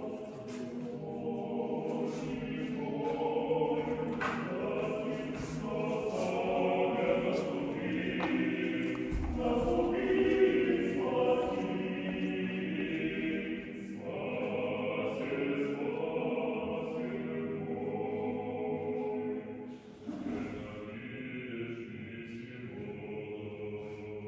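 Orthodox church choir singing liturgical chant unaccompanied, in long phrases of held notes, with a short break about twenty seconds in.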